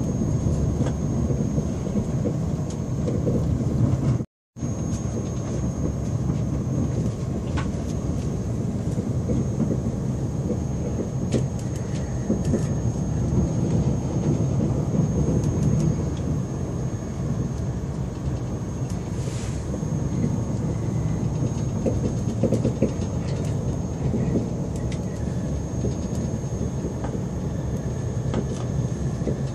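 Passenger train running at speed, heard from inside the carriage: a steady low rumble of wheels on the rails with a faint high whine over it. The sound cuts out for a moment about four seconds in.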